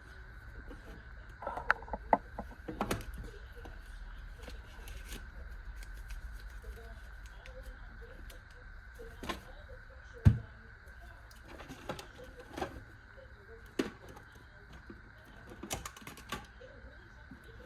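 Handling noise as small packaging is worked by hand, the instruction sheet and charging cable being pushed back into the box: scattered clicks, taps and knocks, with one sharper knock about ten seconds in, over a faint steady hum.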